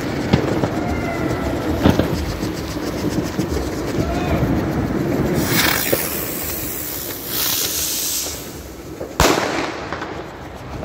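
Fireworks and firecrackers going off at ground level: scattered cracks, two stretches of hissing in the second half, and one sharp, loud bang about nine seconds in.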